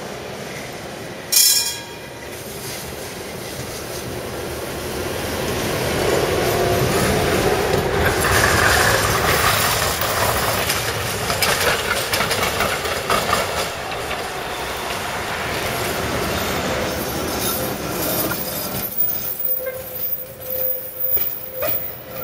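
Trams running on street track. There is a single sharp knock about a second in, then the rumble and clatter of steel wheels on rails builds as a tram passes close and eases off. Near the end the sound turns choppy and uneven.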